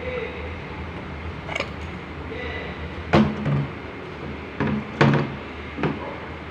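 About six irregular knocks and clunks, the loudest about three and five seconds in, over a steady low hum.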